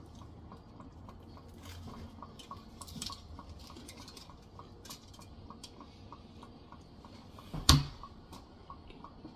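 Aluminium foil crinkling around a toasted sandwich as it is bitten and chewed, over a faint steady ticking of about three to four ticks a second. A single sharp knock comes near the end.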